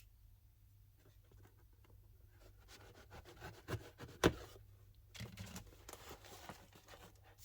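Faint handling noises as a plaster kit box is opened: scattered light scrapes and clicks, with two sharper knocks about four seconds in, the second the loudest, then some rustling.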